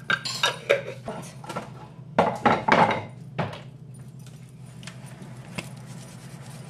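Metal utensils and spice containers clinking and scraping in quick clusters as ground spices go onto sliced onions in a frying pan, loudest between about two and three and a half seconds in, then only a few light ticks. A low steady hum runs underneath.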